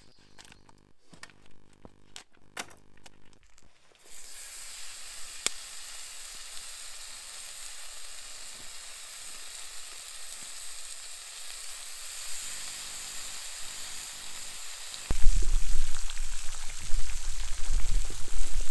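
Bacon strips sizzling in a cast-iron skillet over a campfire: a steady hiss that starts about four seconds in, after a few crinkles and clicks. A loud low rumble joins in near the end.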